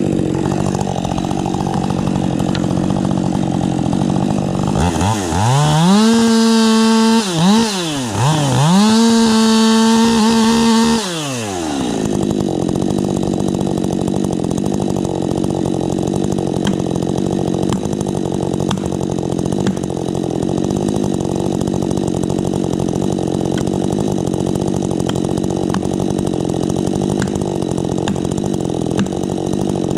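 Husqvarna 550 XP Mark II two-stroke chainsaw idling, then opened up to full throttle twice in quick succession, with a short dip between, before dropping back to idle.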